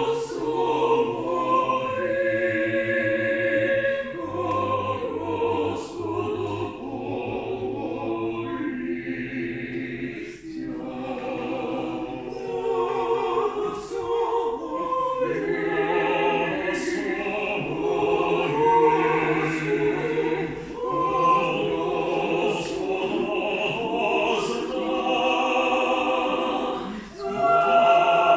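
Small mixed choir singing a cappella in several parts, holding chords through long phrases. There is a short breath-pause about ten seconds in and another near the end.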